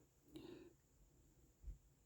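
Near silence: quiet room tone, with a brief faint sound about a third of a second in and a soft low thump near the end.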